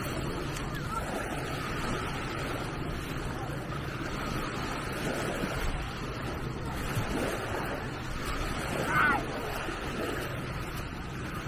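Gentle Mediterranean waves washing onto a sandy beach in a steady wash, with faint voices in the background and a brief high call about nine seconds in.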